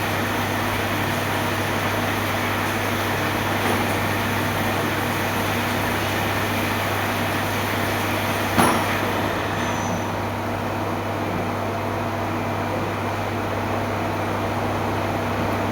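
Steady mechanical hum, a machine running at an even pitch, with a single sharp click a little past halfway.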